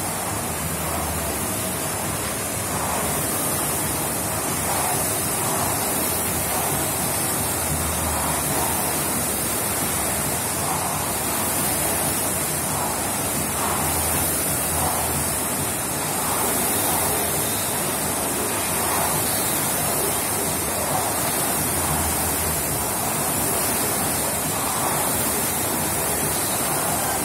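Several air (fan-flywheel) rowing machines being rowed hard at once: a steady rushing whoosh from the fans that swells with each stroke.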